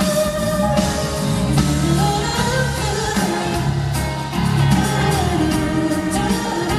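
Female pop singer singing live into a microphone, a slow melody held over steady backing music.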